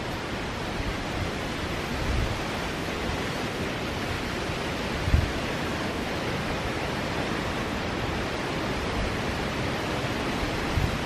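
River water running and rippling over a shallow stretch, a steady rushing, with a brief low thump about five seconds in.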